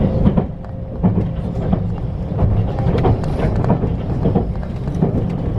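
Low, steady rumble with frequent knocks and rattles, the ride noise of a moving vehicle heard from inside.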